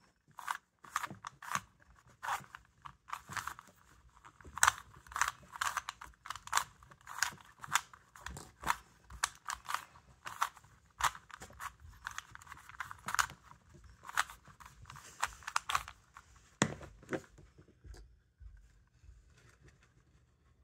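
Plastic 3x3 Rubik's Cube being turned quickly by hand: rapid, irregular clicking and clacking of the layers as they rotate, a few turns a second. Near the end the turning stops and it falls quiet.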